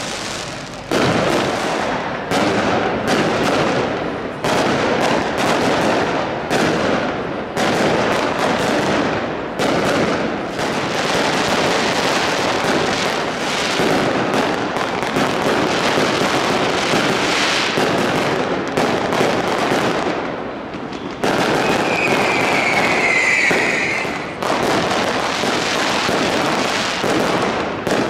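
Fireworks going off in a dense barrage of bangs and crackle, with a short high whistle about three-quarters of the way through.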